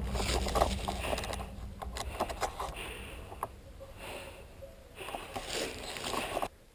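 Rustling and scattered small clicks and knocks of an airsoft player moving through woodland undergrowth with rifle and gear. The sound cuts off suddenly near the end.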